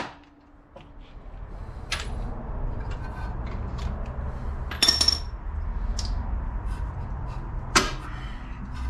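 Scattered metallic clinks and knocks as the loosened strut bolts and tools are handled, one near the middle ringing briefly, over a low steady hum that comes up about a second in.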